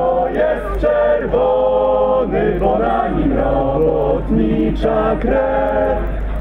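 Voices singing a slow melody with long held notes, over a steady low rumble.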